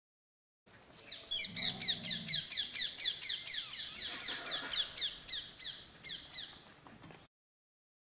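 Animal calls: a rapid run of high, falling chirps, about five a second, with a brief low call near the start. The recording cuts off suddenly.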